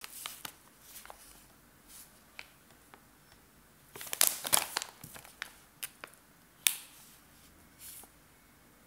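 Plastic packaging pouch crinkling and crackling as it is handled, in short scattered bursts and clicks. The crinkling is loudest about four to five seconds in, with one sharp crackle near seven seconds.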